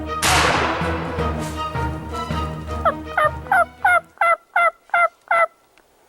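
A turkey yelping, a quick run of about nine short yelps, each dropping in pitch, about three a second. It plays over background music with a beat that opens with a crash-like burst and stops about four seconds in.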